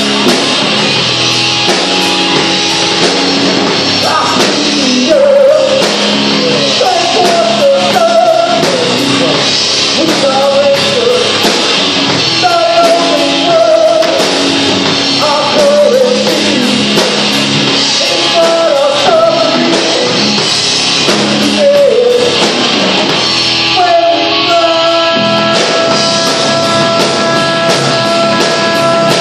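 Live rock band playing: electric guitar, bass and drum kit, with a vocalist singing over them. About 24 seconds in, the band drops out and a single held guitar note rings on.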